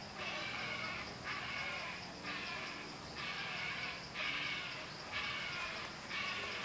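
Harsh animal calls or buzzes repeating evenly about once a second, each lasting most of a second, over a steady high-pitched hiss.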